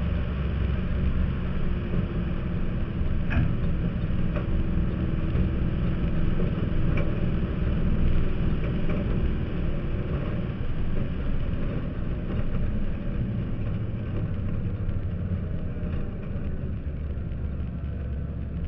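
Race car engine running at speed around an oval, heard from inside the cockpit with road and wind noise. It is a steady drone that gets a little quieter near the end.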